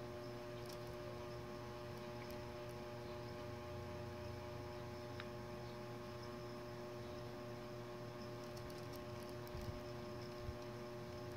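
Steady electrical hum made of several constant tones over a low hiss, with a couple of faint soft taps near the end.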